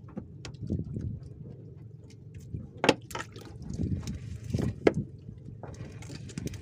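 Wet fishing net being hauled by hand into a small boat, with water splashing and dripping off it. Two sharp knocks, about three and five seconds in, are the loudest sounds.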